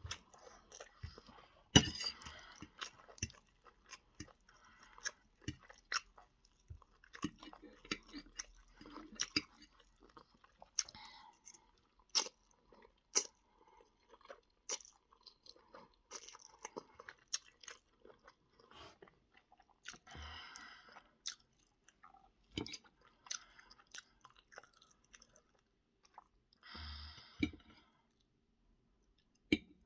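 Close-up chewing and mouth sounds of someone eating spaghetti, with frequent short sharp clicks. Two longer noisy sounds of about a second each come around two-thirds of the way in and near the end.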